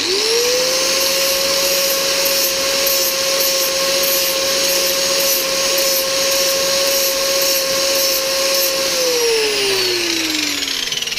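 Electric angle grinder fitted with a flap disc, switched on and spinning up quickly, running at a steady whine, then switched off about nine seconds in and winding down with a falling whine.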